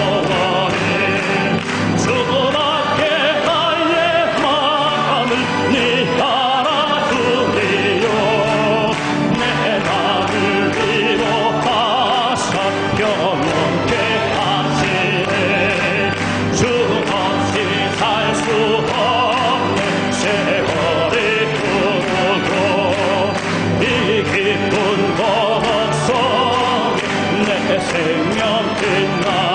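Church congregation singing a Korean hymn, with scattered hand clapping.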